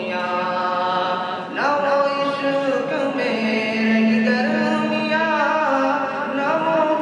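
A young man's solo voice singing a naat, an Urdu devotional poem, into a microphone, drawing out long held notes that slide up and down in pitch. A steady hum runs underneath.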